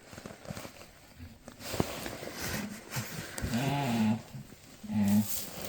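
A goat doe giving two low calls, a longer one about three and a half seconds in and a short one near the end, with rustling and light knocks before and under them.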